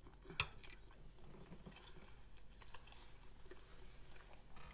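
A person chewing a mouthful of macaroni and cheese, faint wet mouth sounds and small clicks, with one sharp click about half a second in.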